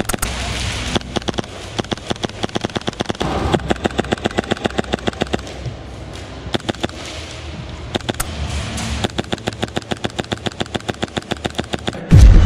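HPA-powered blowback MP7 airsoft gun firing rapid full-auto bursts, a string of sharp, evenly spaced shots several times over. Near the end a sudden loud deep boom takes over.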